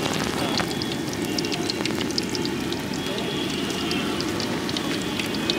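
Battered garlic chops deep-frying in a wok of hot oil: a steady sizzle with many small crackling pops.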